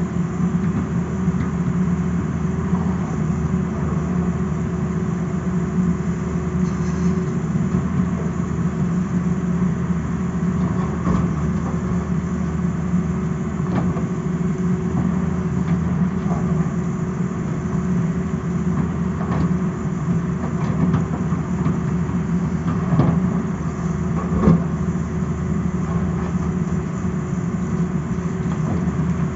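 Tata Hitachi hydraulic excavator's diesel engine running steadily while the machine digs, with a few scattered knocks of rock, the sharpest one about three-quarters of the way through.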